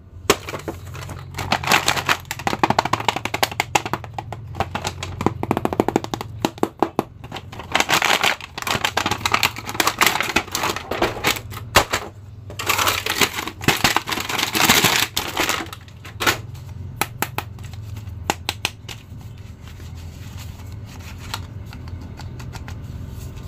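An action figure being unpacked by hand from its cardboard box and clear plastic packaging: plastic crinkling and rustling in bursts, with many small clicks and taps, loudest through the first two-thirds, over a low steady hum.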